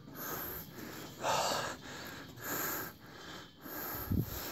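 A person breathing hard and fast close to the microphone, out of breath from climbing a long, steep flight of stairs, with about one breath a second. A low thump comes near the end.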